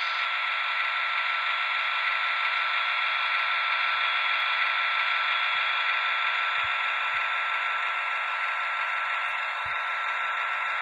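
Sound decoder in an HO-scale EMD SD70ACe model locomotive playing its diesel prime mover running steadily after the startup sequence, through the model's small speaker: an even, hissy engine sound with a steady high tone running through it.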